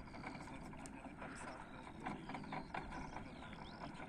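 Open-air ambience: a steady low rumble of wind and a distant vehicle, with small birds chirping high and faint, more of them toward the end.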